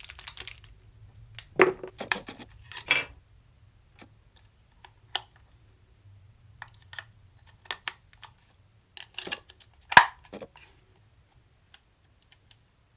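Hard plastic items being handled: scattered clicks, taps and short rustles, with a few louder knocks about two, three and ten seconds in.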